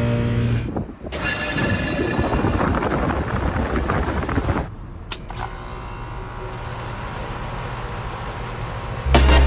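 HVAC units running in a string of short cuts: first a steady motor hum, then a louder rushing whir, then a quieter steady whir. Music comes in near the end.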